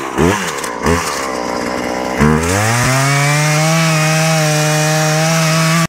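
Poulan Pro two-stroke chainsaw engine given a few quick throttle blips, then revved up about two seconds in and held steady at full throttle.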